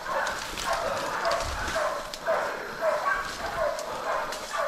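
A bailing dog barking steadily, about two barks a second, as it holds a wild pig at bay. Twigs and leaf litter crackle underfoot close by.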